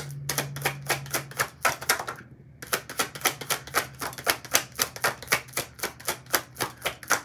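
Tarot cards being shuffled by hand: quick, even slaps about four a second, pausing briefly about two seconds in.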